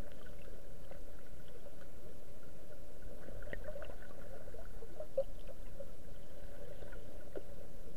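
Underwater river ambience picked up by a submerged camera: a steady muffled rush of water with faint scattered ticks and crackles.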